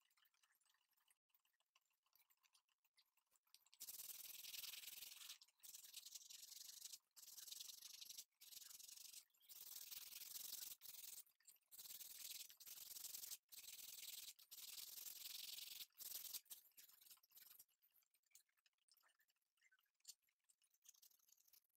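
Sandpaper rubbing on a small carved wooden netting needle: a run of short, hissy sanding strokes about one a second, starting about four seconds in and growing fainter after about sixteen seconds.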